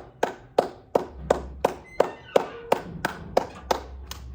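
A steady run of sharp taps, about three a second, each with a short ringing tail.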